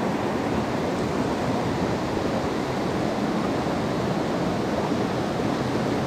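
Shallow rocky creek rushing over stones and riffles: a steady, even sound of running water.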